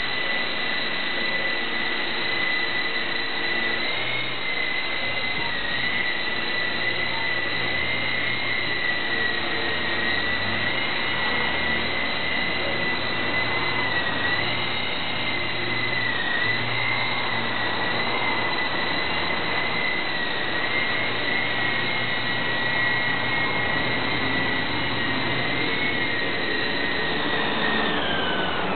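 Small electric radio-controlled Robinson R22 model helicopter hovering: a steady high motor whine over rotor whoosh, its pitch wobbling slightly with throttle corrections. Near the end the whine drops in pitch as the motor slows.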